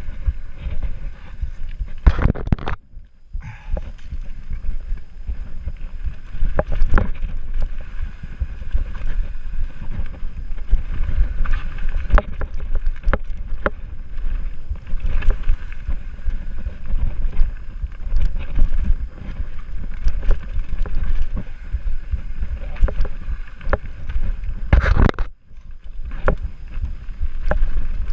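Mountain bike rattling down a rough dirt trail at speed, with wind buffeting the GoPro's microphone and frequent sharp knocks from the bike jolting over bumps and roots. Two louder rushes of noise come about two seconds in and near the end.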